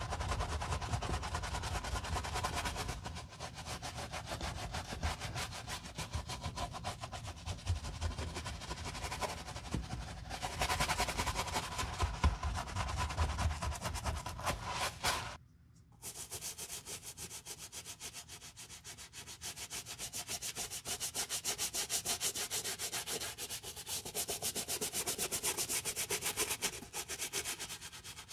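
Wooden-handled bristle brush scrubbing a lathered canvas sneaker in fast back-and-forth strokes, inside the shoe and along its rubber sole. It breaks off briefly about halfway through, and the scrubbing after the break sounds brighter and hissier.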